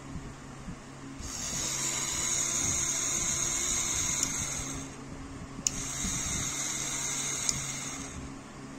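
Homemade mini drill, a small DC motor from an old DVD player driving a thin bit through a plastic gearbox, running free with a high whine. It runs for about four seconds, stops briefly, and starts again with a click for a few more seconds.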